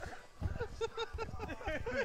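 A man laughing, a quick run of short bursts through the middle.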